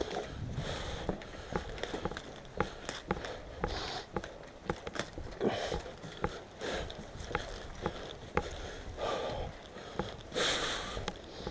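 Breathing close to the microphone in short hissing breaths, over many irregular sharp clicks and knocks, typical of airsoft guns firing and BBs striking inside the building.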